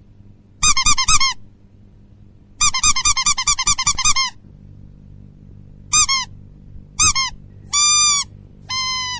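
A meme sound effect of high-pitched squeaking. It comes in rapid-fire bursts of many quick squeaks each, the longest lasting about a second and a half. Two short single squeaks follow, then two slightly longer held ones near the end, over a faint low hum.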